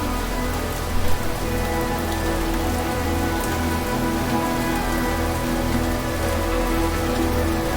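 Steady rain falling, with held tones underneath and a brief louder patch about a second in.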